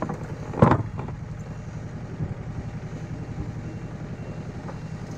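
Small sailboat's inboard engine idling steadily, with a loud knock about two-thirds of a second in.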